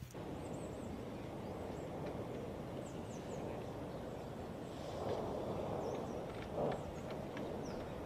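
Outdoor ambience: a steady low rumbling noise with faint, short bird chirps now and then.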